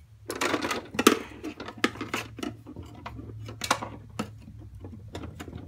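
Silverware and dishes clinking and clattering as they are washed and sorted by hand: a scattered string of sharp knocks and clinks, the loudest about a second in.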